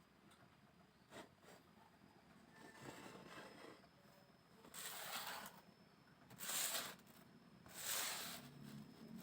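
Bamboo being scraped by hand in three short strokes about a second and a half apart, with a few light clicks before them.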